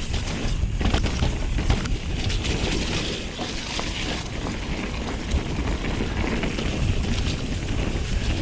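Mountain bike riding down a muddy trail: wind buffeting the action camera's microphone over the rolling tyres, with scattered clicks and rattles from the bike.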